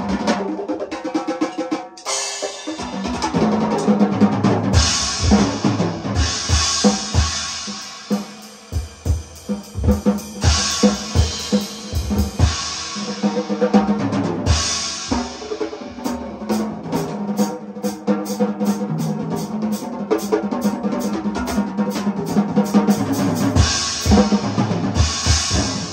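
Music with a drum kit: bass drum and snare hits with repeated cymbal crashes over a held low tone. From about sixteen seconds in, a steady run of quick, evenly spaced high ticks runs under it.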